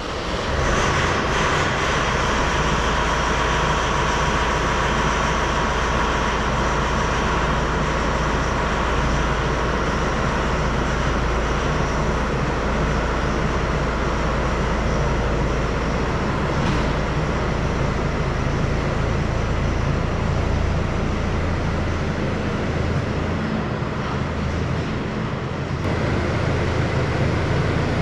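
Fendt tractor's diesel engine running steadily with a deep rumble, loud and echoing in a machinery hall. It comes up suddenly at the start, its low note shifts about halfway through, and it grows louder again near the end as the tractor comes closer.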